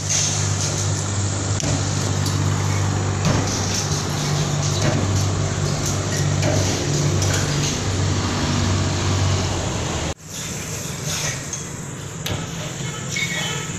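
An engine running steadily with a low, even hum, which stops abruptly about ten seconds in, leaving a fainter noisy background.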